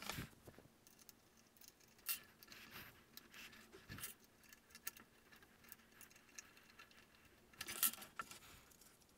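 Faint, scattered clicks and light rattles of small flush cutters snipping and pulling away zip ties from the cables of a 3D-printed robot actuator, the sharpest click near the end.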